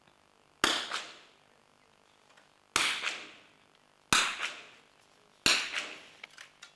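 Four separate shots from .22 rimfire smallbore target rifles, each a sharp crack with a short echo dying away in the shooting hall, spaced about two seconds, then one and a half seconds, then just over a second apart. A few light clicks follow near the end.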